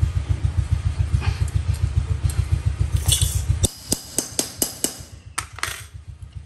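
Wire cutters snipping through the wires of a wire-mesh panel and metal tools clinking, a run of sharp metallic clicks, thickest from about three to five seconds in. Under them a low, pulsing motor-like hum runs loud and cuts off suddenly a little past halfway.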